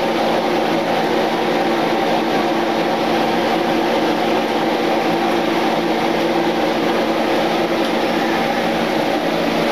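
Steady whirring hum of a fan motor: an even hiss with several steady humming tones, loud and unchanging throughout.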